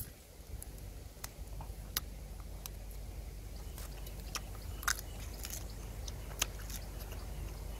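A person biting and chewing grilled duck, with scattered short wet mouth clicks and crackles, over a steady low rumble.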